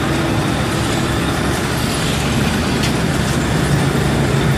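Cutting machine running steadily with a low hum, and one sharp click about three seconds in.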